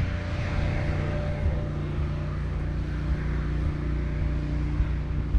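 A steady low mechanical hum, like an engine running at a constant speed, with a few faint knocks.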